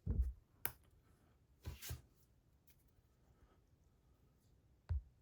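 Small two-blade Case pocket knife being handled and its blade opened: a low knock at the start, a sharp click just under a second in, a brief rustle around two seconds, and another knock near the end.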